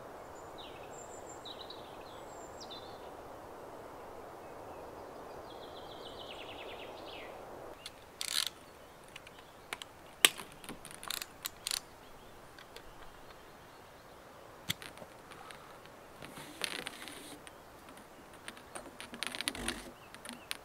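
A river rushing steadily, with a bird trilling over it, until the water sound drops away about eight seconds in. Irregular sharp clicks and knocks follow, several at a time near the end.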